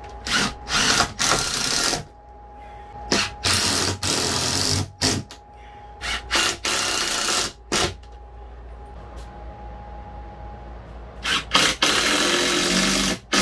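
Cordless drill driving screws up into a plywood ceiling panel, in four groups of short bursts of a second or two each, one group for each screw. The screws are larger ones going back into the old holes.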